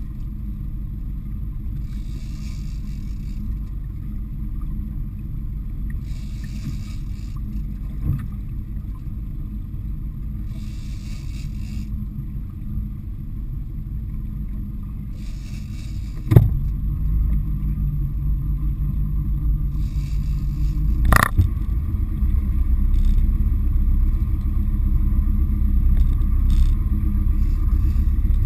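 A fishing boat's engine running steadily under wind and water noise. Two sharp knocks come a little past halfway and about five seconds later, and the engine note changes after the first one and grows louder toward the end.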